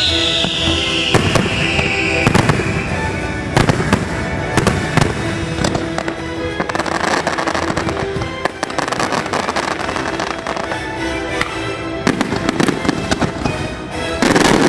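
Fireworks bursting in rapid barrages over the show's music soundtrack, with many sharp bangs and crackles. A high tone falls in pitch over the first couple of seconds, and a dense, loud barrage of bursts comes near the end.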